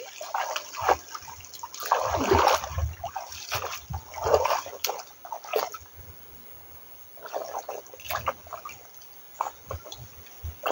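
Hands splashing in the shallow water of a stony stream, in irregular bursts that are loudest in the first half. Near the end come a few splashing steps as someone wades through the shallows.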